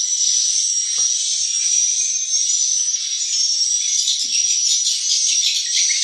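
Swiftlet lure calls played through tweeter speakers: a dense, continuous high-pitched chirping chatter that never pauses.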